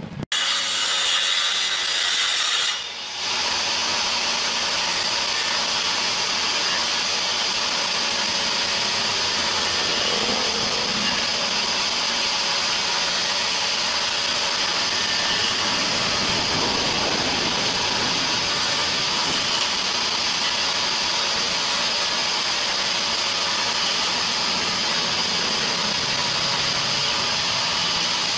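Small belt-driven table saw running steadily while a wooden cabinet door is pushed across the blade, sawing along its edge. The sound dips briefly about three seconds in.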